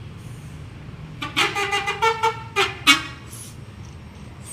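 A bus's telolet horn, a multi-tone air horn, playing a quick tune of several short notes for about two seconds, over a steady low rumble.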